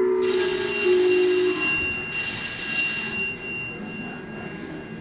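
An electric bell ringing loudly in two bursts, a long one of about two seconds and a shorter one of about a second, then fading, over quiet background music.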